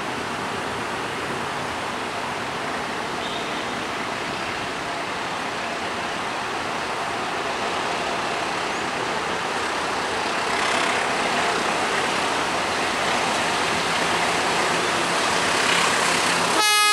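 Approaching diesel-hauled container freight train: a steady noisy rush that slowly grows louder as it nears. Right at the end the locomotive's horn begins to sound.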